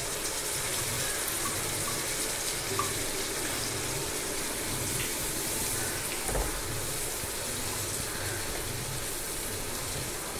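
Boiled cluster beans sizzling steadily in hot oil in a nonstick frying pan, with a spatula stirring them now and then.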